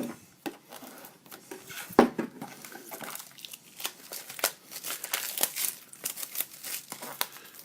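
Packaging crinkling and tearing in irregular rustles as a sealed trading-card box is opened, with one sharp snap about two seconds in.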